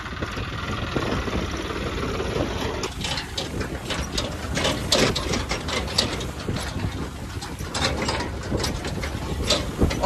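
John Deere tractor's diesel engine running steadily as the tractor drives through the field. From about three seconds in there is irregular rattling and clatter.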